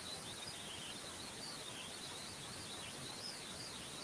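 Quiet room tone: a steady low hiss with a faint, high-pitched, wavering whine.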